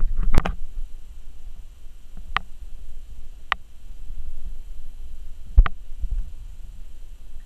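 Welsh corgi puppy tussling with and biting a plush hand puppet close to the microphone: a low rumbling handling noise with about five sharp taps or clicks, the loudest near the start and about two thirds of the way through.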